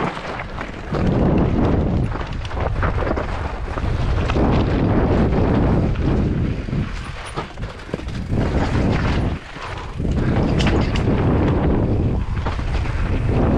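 Loud, rough rumble of an off-road bike ride down a rocky dirt trail: wind buffeting the helmet-camera microphone and the bike rattling and jolting over rocks, easing briefly a few times.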